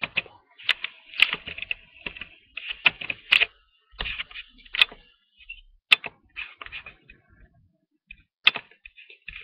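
Hurried, irregular typing on a computer keyboard: sharp key clicks several a second, with a pause of about a second near the end.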